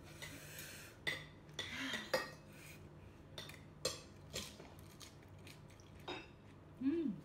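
Plates, bowls and utensils clinking and clattering in scattered bursts as food is picked from the dishes, over a steady low hum, with a short voiced sound from one of the eaters near the end.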